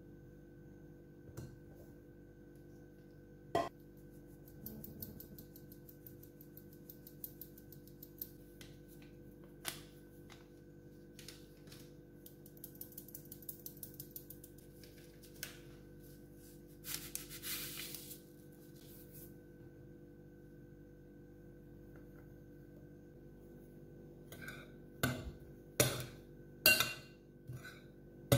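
Flour being sifted through a metal mesh sieve over a glass bowl, with runs of quick light rattling ticks as the sieve is shaken. Then a metal spoon stirs the flour in the glass bowl, clinking sharply against the glass several times near the end; these clinks are the loudest sounds. A steady low hum runs underneath throughout.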